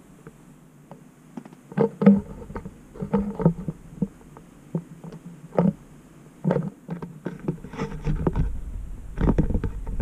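Scattered knocks, clicks and rustles inside a car cabin, then the car's engine and road noise building up near the end as it pulls away.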